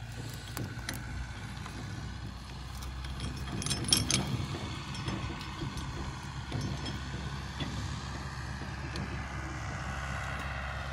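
Mahindra Bolero pickup's engine idling steadily, with a heavy steel chain clinking and rattling as it is wrapped around a tree root; the clinks are loudest about four seconds in.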